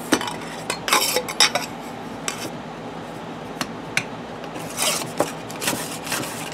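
A steel socket on an extension clinking and scraping against a metal fuel-sender tube as it is fitted in and pushed through to straighten a dent in the tube. The clinks and scrapes come irregularly, with a cluster in the first second and a half and another about five seconds in.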